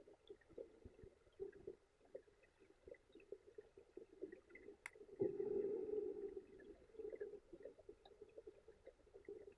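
Faint muffled underwater sound picked up by a submerged camera: scattered small clicks and crackles, a sharp click about five seconds in, then a louder muffled rush of water noise lasting about a second.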